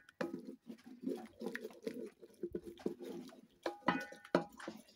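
A metal spoon stirring and scraping in an aluminium cooking pot, with many irregular short scrapes and knocks. A brief pitched animal call sounds about four seconds in.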